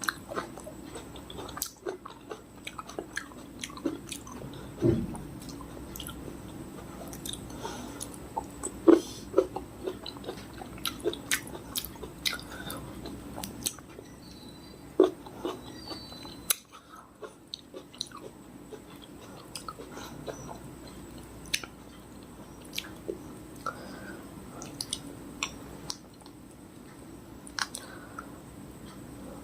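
Close-miked chewing and biting of fresh fruit: irregular wet clicks and smacks, with a few louder bites.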